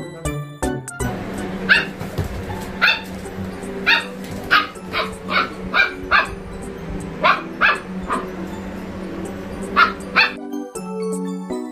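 A dog barking about a dozen times in short, single barks at an uneven pace, over a steady low hum. Jingly background music plays in the first second and comes back near the end.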